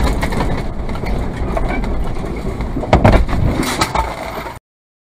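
Road and engine noise inside a semi-truck's cab as it swerves off the highway, with a cluster of loud bangs and rattles about three seconds in as the truck jolts and crashes. The sound cuts off suddenly near the end.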